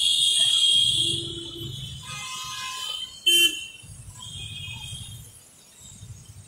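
Street traffic on a rain-soaked road: scooters, motorcycles and cars pass with their tyres hissing through standing water and their engines rumbling as they go by. The hiss is loudest in the first second, and a short, sharp sound stands out about three seconds in.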